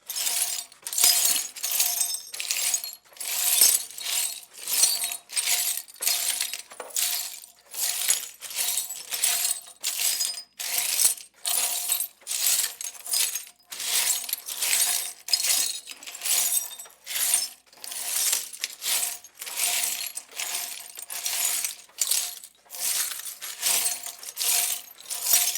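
Broken glass shards being swept across a floor with a broom: repeated strokes, roughly one to two a second, each a scraping rush with the shards tinkling and clinking against each other.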